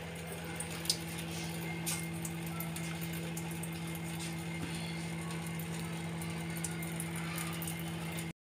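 A steady low hum from a running motor, with faint scattered ticks and two light knocks about one and two seconds in; the sound cuts off abruptly just before the end.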